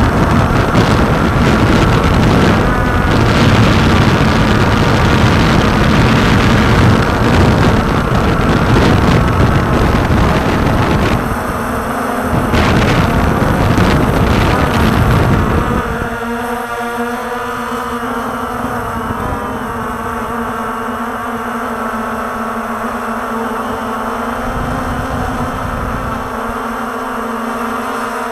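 Walkera TALI H500 hexacopter's electric motors and propellers running in flight, picked up by the onboard camera's microphone, with heavy wind buffeting for roughly the first fifteen seconds. After that the buffeting drops away and a steady pitched motor hum remains.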